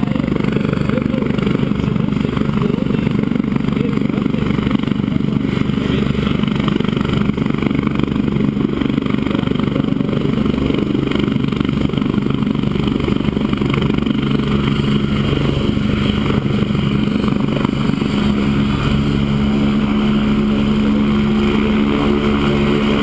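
Medical helicopter running on the ground with its engine and rotor turning, a steady low hum that grows stronger and clearer from about two-thirds of the way through.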